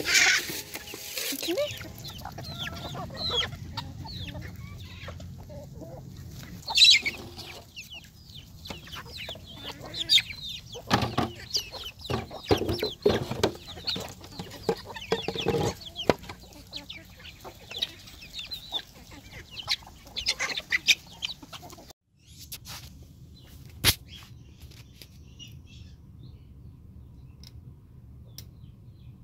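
Chickens clucking and calling while a mixed flock pecks at scattered grain. Near the end it cuts to a quieter, steady low hum with a single sharp click.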